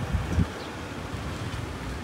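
Wind rumbling on the microphone outdoors, with a couple of stronger gusts in the first half second.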